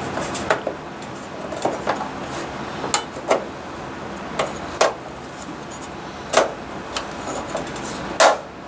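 Sheet-metal junction box cover being fitted over the thermostat shaft on the end of an electric baseboard heater: a series of irregular light metal clicks and knocks as it is pushed and seated, with two louder knocks in the second half.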